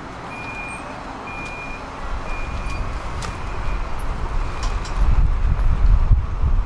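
Tram sound: three short, high warning beeps about a second apart, then a low rumble that grows steadily louder over the second half.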